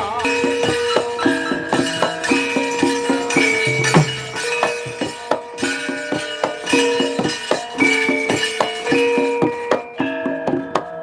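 Javanese gamelan playing: bronze metallophones ring on held notes over a quick, steady pattern of short struck notes, with a low drum stroke about four seconds in.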